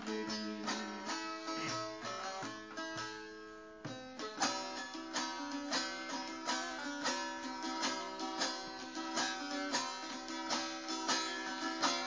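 Bağlama (saz), the long-necked Turkish lute, played in an instrumental passage of quick plucked notes. The playing thins and fades about three seconds in, then starts again strongly about a second later.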